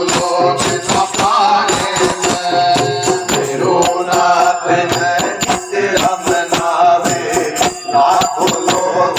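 Devotional bhajan music from a bhagat mandali: singing in a chant-like melody over hand percussion and jingling rattles or cymbals beating a steady rhythm.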